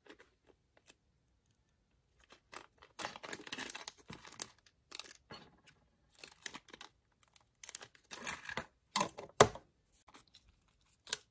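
Hands handling a piece of crocheted yarn work: intermittent rustling with small sharp clicks, the sharpest about nine seconds in.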